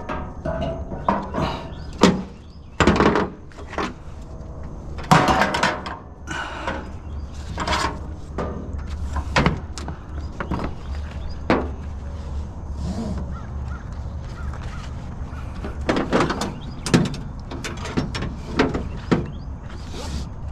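Scrap items being handled and packed into a vehicle's cargo area: irregular knocks, clunks and short scrapes of objects being set down and shifted, over a steady low hum.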